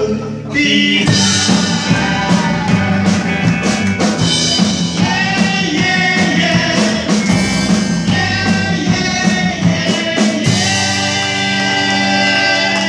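Live rock band playing with electric guitars, drum kit and vocals; the song settles onto a held final chord in the last couple of seconds.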